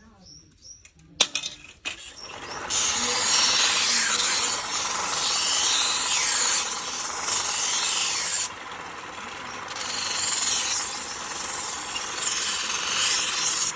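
Steel knife blade ground against a bicycle-driven grinding wheel, a steady rasping hiss that starts about two and a half seconds in and eases briefly a few times as the blade is shifted. A sharp click comes just before the grinding starts.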